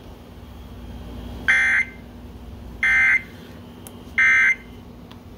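Emergency Alert System end-of-message (SAME) data tones: three short, identical screeching data bursts, each about a third of a second long and spaced about a second apart, marking the end of a relayed severe thunderstorm warning.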